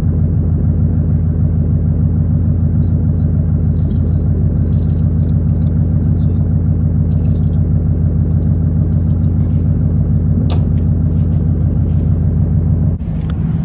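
Mercury Grand Marquis V8 idling steadily through a straight-piped dual exhaust: an even, low rumble. The sound changes abruptly near the end.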